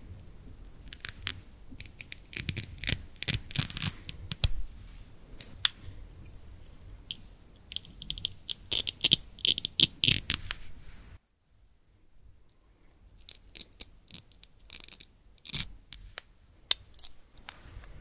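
Velcro hook-and-loop strips ripping apart in crackly bursts as halves of wooden toy fruit and vegetables are pulled off each other. The tearing breaks off abruptly about eleven seconds in, then comes back softer and more scattered.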